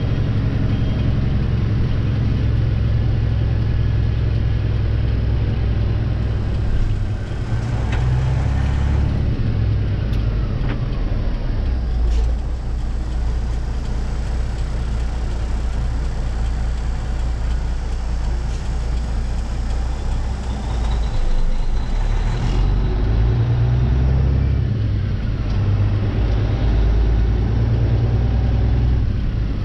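Semi-truck diesel engine running, heard inside the cab while driving. Its low pitch shifts several times as the truck slows and pulls again, with a couple of short sharp sounds about halfway through.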